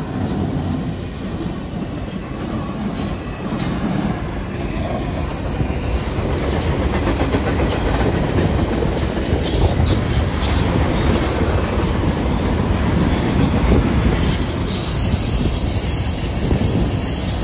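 Norfolk Southern freight train rolling past at close range: a heavy, steady rumble of locomotives and freight cars, with clacking and clanking wheels over the rails. It grows louder toward the latter part.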